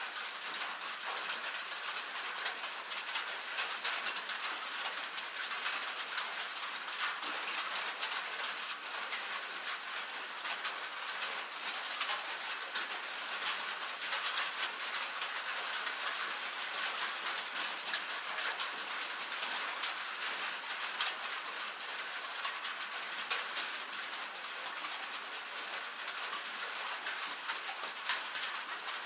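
Light rain falling on a metal roof: a dense, steady patter of small drop ticks.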